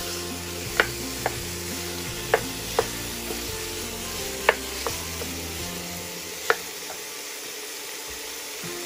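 Raw ground beef frying in an oiled pan with onion and celery, a steady sizzle, while a wooden spoon breaks the meat up and stirs it, knocking sharply against the pan about seven times.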